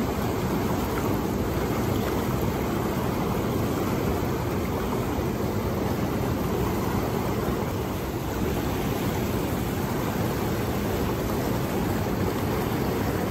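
Steady rushing of fast river rapids and whitewater, a continuous low, even roar with no breaks.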